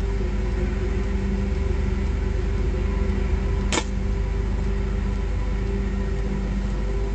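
A steady droning hum, like a motor running, with one sharp snap a little past halfway.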